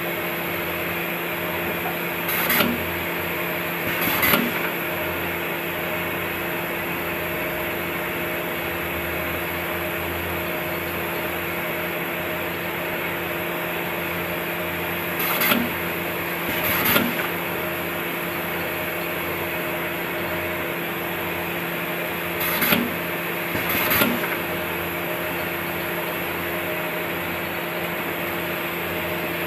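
Automatic radial component insertion machine running with a steady mechanical hum, and three times a pair of sharp clacks about a second and a half apart as its mechanism cycles.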